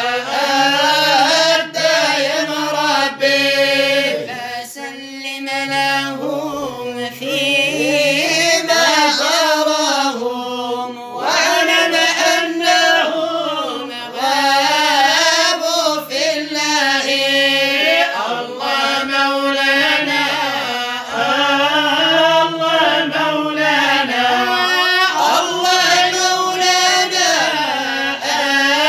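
Islamic devotional singing in praise of the Prophet (madih nabawi): voices chanting long, ornamented lines whose pitch wavers and bends, with short breaths between phrases.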